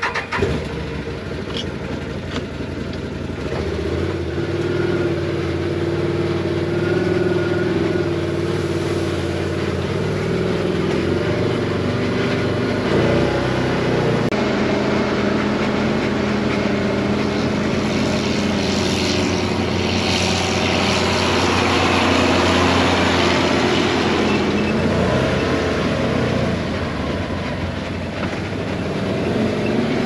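Can-Am side-by-side UTV's engine started with the key and catching at once, then running steadily as the vehicle drives off, its pitch shifting a few times with speed.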